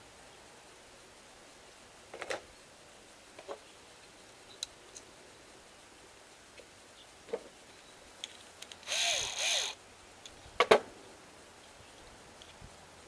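Hands working on doorbell wiring and small tools: scattered light clicks and taps, a brief scraping noise about nine seconds in, then a couple of sharp clicks just after it.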